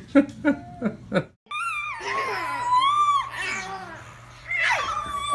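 Babies laughing and squealing: a quick run of short laughs, then after a brief break long high-pitched squeals whose pitch glides up and down.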